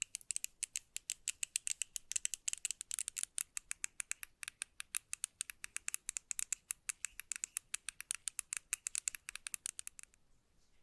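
Rapid run of sharp, light clicks, several a second, from a Razer Naga Pro gaming mouse being clicked. The clicking stops suddenly about ten seconds in.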